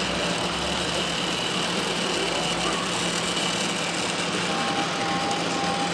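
H0 model railway layout in operation: a steady electric hum of running model trains, with a low rumble for the first three seconds as a freight train of loaded flat wagons passes. A few short faint beeps come near the end.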